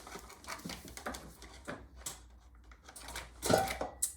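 Light clicks and taps of chainsaw parts being handled and fitted back together by hand, with a louder clatter about three and a half seconds in.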